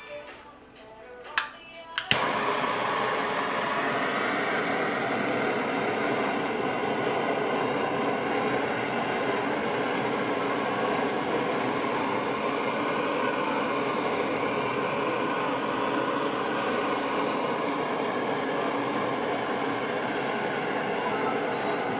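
A handheld gas torch clicks twice and lights on the second click about two seconds in, then its jet flame hisses steadily as it caramelises the sugar on top of a crème brûlée.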